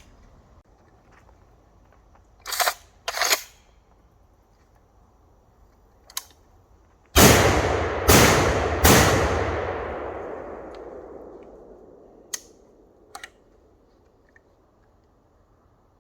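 Three gunshots in quick succession, under a second apart, each followed by a long rolling echo that slowly fades. Two shorter, sharp cracks come a few seconds before them.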